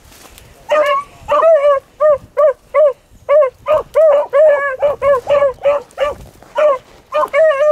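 Beagle hound giving tongue while trailing a rabbit's scent: a quick run of short, high yelping barks, about three a second, starting about a second in.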